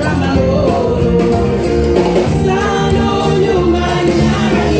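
Gospel choir singing live, a lead singer on a microphone with the choir behind her, over amplified instrumental backing with a steady beat.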